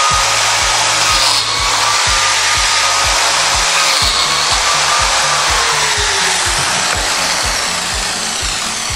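Electric biscuit joiner running as its spinning blade cuts slots into a wooden strip. Its whine holds steady, then falls away about six seconds in as the motor is switched off and spins down.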